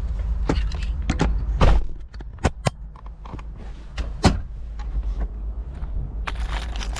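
Car door and handling noises: a run of sharp clicks and knocks over a low rumble that eases about two seconds in.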